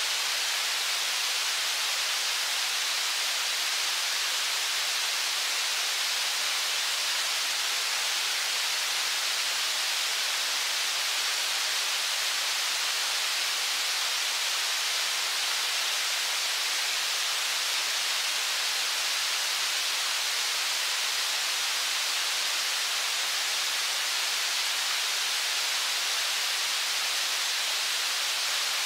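Steady rush of river water over rapids: an even, unbroken hiss with little bass.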